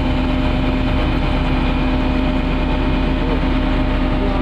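Heavy diesel engine of road-construction machinery running steadily at a constant speed, a low rumbling drone with a steady hum.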